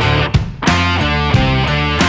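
Background music: electric guitar chords played in short, rhythmic stop-start stabs.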